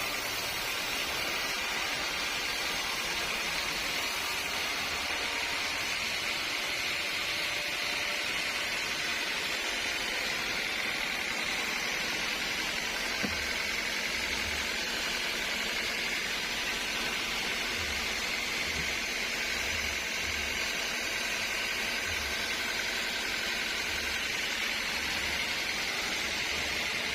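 Steady, even machine noise of sawmill machinery running, with one sharp click about 13 seconds in.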